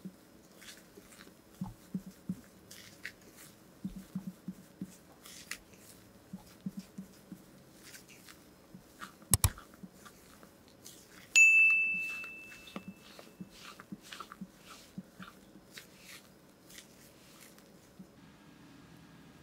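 Silicone spatula folding thick red velvet cake batter in a glass mixing bowl: soft squishing and scraping strokes. A little past halfway there is a loud double knock, then a sharp clink with a clear ring that fades over about two seconds.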